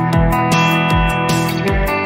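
Instrumental passage of a post-punk song: strummed and picked guitars over a steady drum beat with a regular kick drum.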